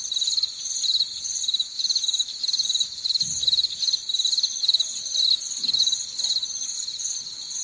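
Crickets chirping in a steady rhythm of short trilled chirps, about two a second.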